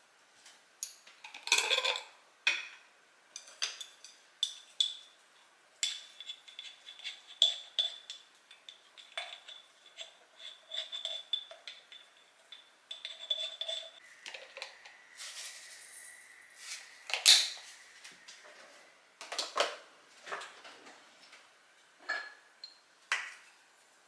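A series of light clinks, taps and knocks of glass jars, lids and a glass bowl on a countertop as flakes and sesame seeds are shaken out over rice. The loudest knock comes about two-thirds of the way through.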